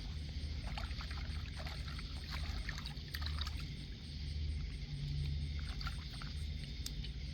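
Light water trickling and small splashes in shallow water at the bank, over a steady low rumble.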